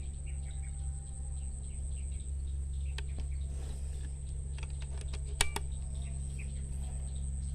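A few sharp clicks over a steady low hum, with one louder snap about five and a half seconds in and faint bird chirps behind.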